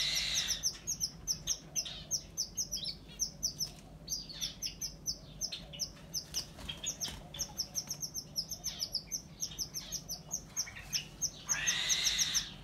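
Small aviary birds chirping in a dense, quick run of high chirps, many to the second. A brief rustle of leaves and nest grass being handled comes at the start and again near the end.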